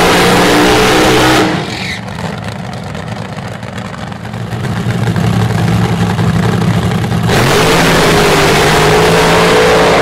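Nitro-burning nostalgia funny car engines at the starting line. They run loud, fall away to a lower, steadier idle about a second and a half in, then build back up and rise in pitch near the end as the cars leave the line.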